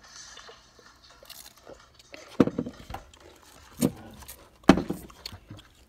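Handling noise from a plastic cup of drink being drunk from and moved close to the microphone, with soft sounds at first and then three loud knocks about two and a half, four and nearly five seconds in.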